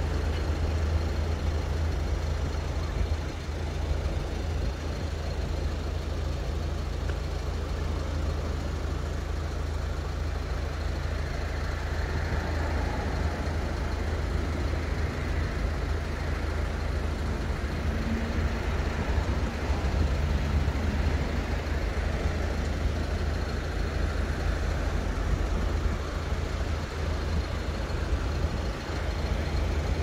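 Surf breaking and washing up a sandy beach, with slow swells in the noise, over a steady low rumble.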